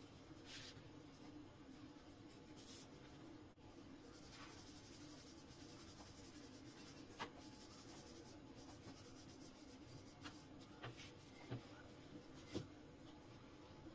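Faint rubbing and scraping of hands and a wooden rolling pin working jowar flatbread dough on a stone rolling board, with a few light taps in the second half, over a low steady hum.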